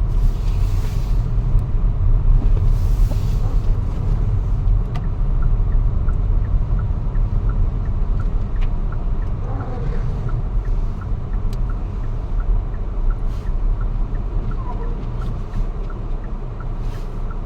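Car cabin road noise while driving on a snowy road: a steady low rumble of engine and tyres with a light hiss. A faint, regular ticking joins about a third of the way through.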